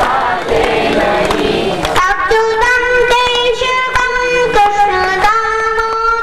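A congregation chanting a Hindu kirtan in unison. About two seconds in, a child's voice takes the next line alone through a microphone in long held notes, over a steady beat of hand-clapping.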